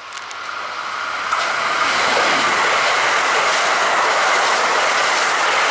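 Kintetsu 80000-series Hinotori limited-express electric train approaching and passing close by: the rush of wheels on rail grows quickly over the first two seconds, then holds loud and steady as the cars go past.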